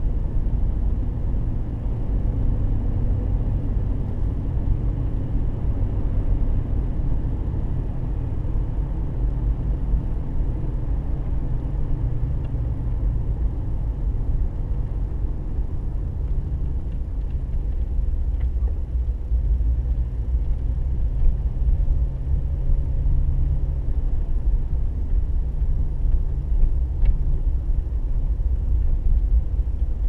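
A car driving slowly, heard from inside the cabin: a steady low rumble of engine and road noise.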